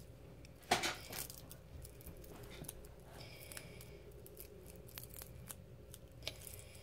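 Press'n Seal plastic wrap being peeled away by hand: quiet crinkling and tearing, with a sharper crackle about a second in.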